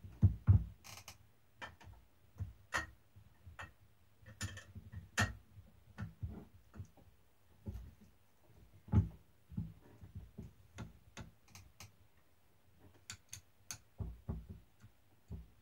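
Irregular clicks and knocks of a replica championship title belt and its metal side plates being handled on a wooden table as the side plates are swapped. The loudest knocks come right at the start and about nine seconds in.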